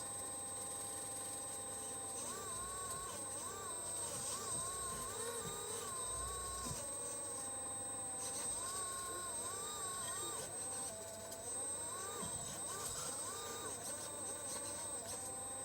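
Small electric motors of an RC model excavator whining as it works, their pitch rising and falling again and again with the changing movements and load, over a steady high-pitched whine.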